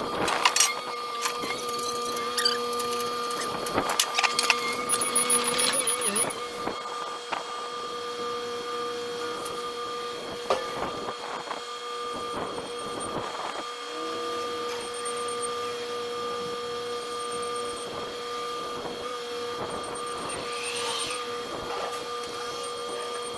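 A machine runs steadily with a whining hum, while metal parts clank and knock irregularly, most busily in the first few seconds.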